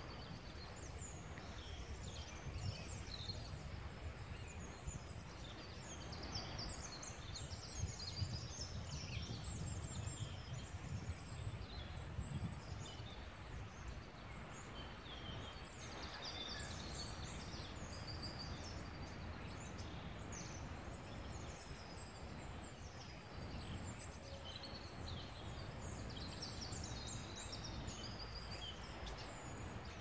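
Several small songbirds chirping and twittering in short, overlapping phrases, over a steady low rumble.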